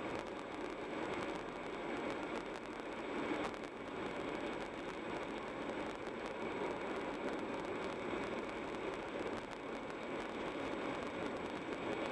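Car driving along a road: steady tyre and engine noise that holds even, with no sudden events.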